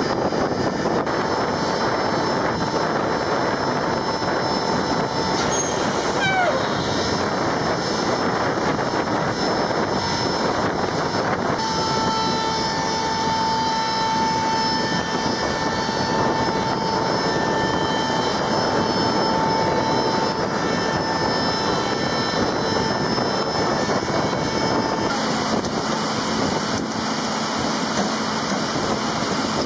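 Steady running of flightline ground equipment engines, such as the munitions loader, with a thin high whine and a brief falling whistle about six seconds in. The texture changes twice, near twelve seconds and near twenty-five seconds.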